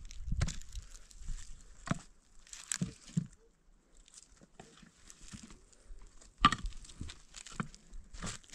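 A few separate knocks and scuffs at uneven intervals, the loudest about six and a half seconds in.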